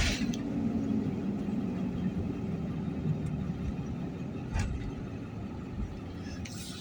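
Steady road and engine rumble of a vehicle driving over the bridge, heard from inside the cab, with a sharp knock at the very start and a fainter one about four and a half seconds in.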